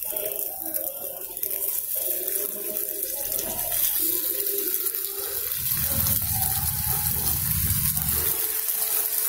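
Hot oil in the wells of an unniyappam pan sizzling with a steady hiss as stuffed rice-flour dough balls are set into it one by one. A low rumble comes in for a couple of seconds past the middle.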